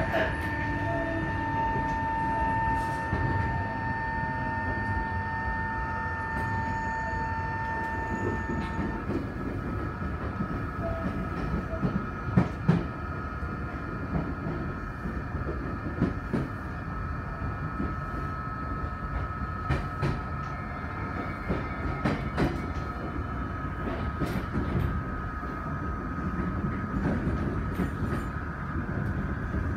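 Tokyo Metro 03 series train running at speed, heard from inside the car: the steady whine of its chopper control, the 'violin chopper', over motor and wheel rumble with scattered rail-joint clicks. The chopper's pair of tones stops about nine seconds in, and a single tone of a different pitch carries on.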